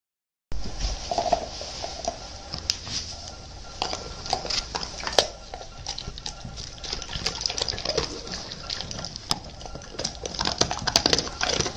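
A German Shepherd sniffing and licking at close range, a scatter of small wet clicks and snuffles.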